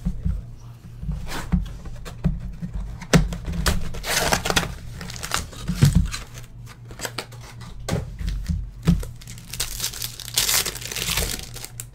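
Hands opening a sealed box of 2013-14 Intrigue basketball cards: plastic wrap crinkling and tearing, and cardboard and packs rustling and sliding out, in irregular bursts with a few sharp clicks, over a low steady hum.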